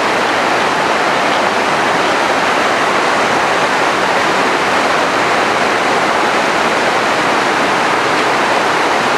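Mountain river in flood, swollen and silty, rushing over boulders with a loud, steady roar of turbulent water.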